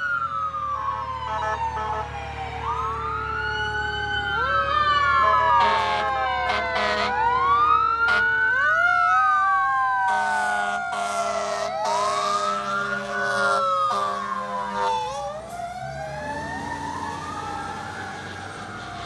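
Fire engine's Federal Q2B mechanical siren winding up and coasting down again and again, overlapping other siren wails. Air horn blasts sound through the middle stretch, over a low truck engine rumble.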